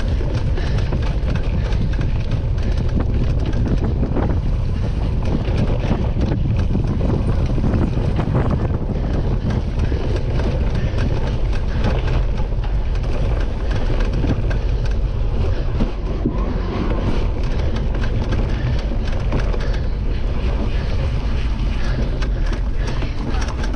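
Wind buffeting the action camera's microphone as a cyclocross bike rides fast over rough grass, a steady heavy rumble, with frequent knocks and rattles from the bike jolting over the bumpy ground.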